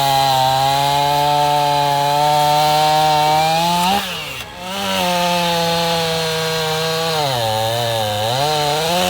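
Two-stroke chainsaw running hard at high revs, a strong steady engine note. About four seconds in it revs up and drops off for a moment. Near eight seconds its pitch sags and then climbs back.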